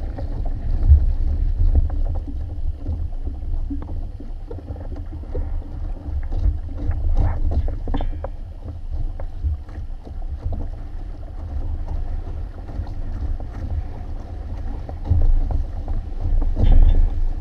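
Wind buffeting the microphone on a Hobie Tandem Island sailing trimaran under sail, over water rushing along and slapping against its hulls in short splashes.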